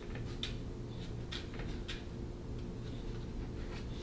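Faint, short clicks and light dabbing of a small glue brush applying contact cement onto a marionette's shoulder, over a steady low room hum.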